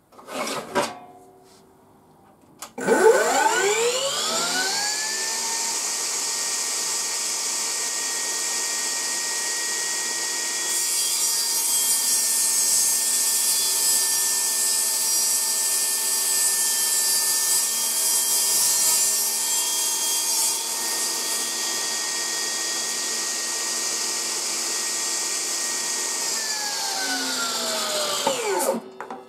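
HiKOKI C3610DRJ cordless table saw running on its battery: the blade spins up with a rising whine about three seconds in and then runs steadily. From about the middle it cuts through a piece of laminated particleboard for around ten seconds, and near the end it winds down with a falling whine once switched off.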